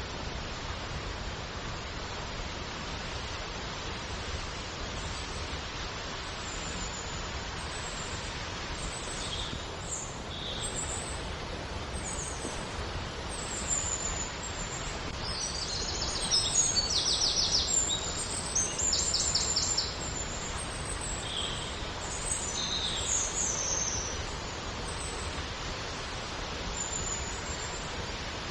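Steady rush of flowing water with small birds chirping over it. The calls begin about a third of the way in, and two fast trills near the middle are the loudest.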